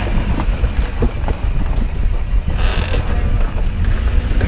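A 4x4's engine and drivetrain rumble at crawling speed over a rocky trail, with wind buffeting the microphone, scattered short knocks, and a brief hiss a little past halfway.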